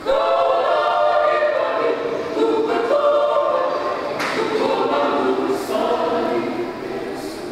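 Mixed choir of men's and women's voices singing in parts, coming in together loudly right at the start and easing off a little near the end.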